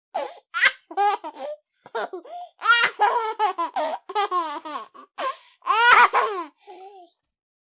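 Young children laughing and giggling in quick bursts, with one long high-pitched peal of laughter about six seconds in.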